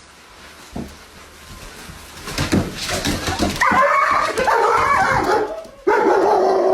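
A dog whining and yipping in high, wavering cries that begin about halfway through, after a quiet start, and break off briefly before resuming near the end.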